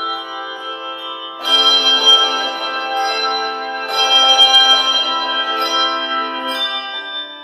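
Handbell choir ringing sustained chords, many bells sounding together. Two loud full chords are struck about a second and a half in and again about four seconds in, each ringing on and fading toward the end.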